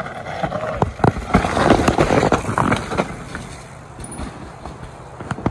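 Mountain bike coming down a steep dirt trail: tyres scrubbing through dirt and pine needles, with sharp knocks and rattles from the bike, loudest one to three seconds in and then fading.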